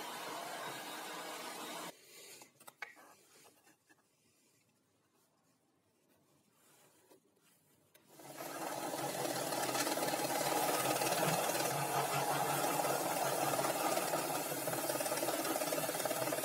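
Homemade belt sander running with a plywood piece pressed against the belt, a steady abrasive sanding noise that starts about eight seconds in and is the loudest sound. Before it, a quieter steady machine noise cuts off about two seconds in, followed by a few light clicks.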